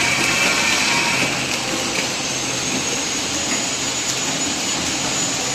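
Automatic flow-wrapping packaging machine running steadily as it wraps jelly cups in film: a continuous mechanical whir, with a faint high whine that sets in about two seconds in.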